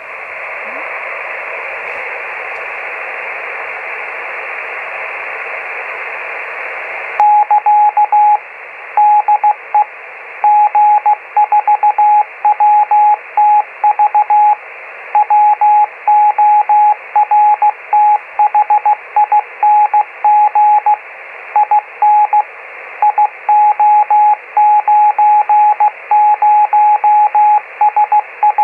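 Radio receiver hiss for about seven seconds, then a single steady Morse code tone keys on suddenly and sends dots and dashes over the hiss. It is the G4WTV 50 mW beacon on 432.493 MHz, a modified weather-balloon radiosonde transmitter, heard on a Yaesu FT-817 whose offset from the carrier produces the tone.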